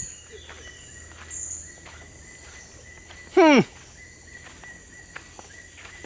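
Insects droning steadily, with faint scattered clicks such as footsteps on dry ground. About three and a half seconds in comes one short, loud voice sound from a person, falling quickly in pitch.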